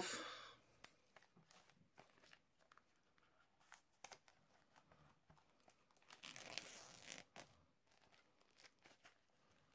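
Fingers picking at the plastic shrink-wrap on a mediabook case: faint scattered ticks and scratches, with one longer crinkling rustle of the film about six seconds in.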